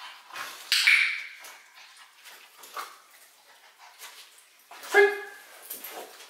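Young dog tugging on a rag, giving short whines and yelps: a sharp cry about a second in and a louder, higher yelp about five seconds in, with fainter scuffling between them.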